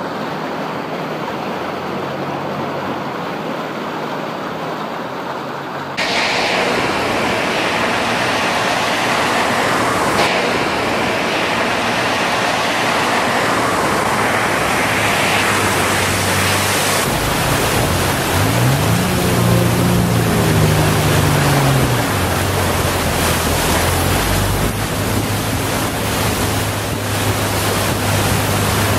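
Pickup truck, a Nissan Frontier, ploughing through deep floodwater on a road: a loud, steady rush of spraying water. Under it the engine runs low, revving up and back down briefly around twenty seconds in.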